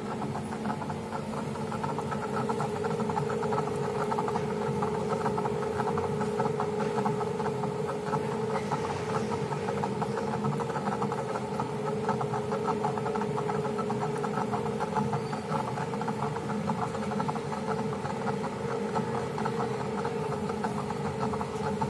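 Electric potter's wheel running steadily: a motor hum with a fast, even rattle as the wheel head spins.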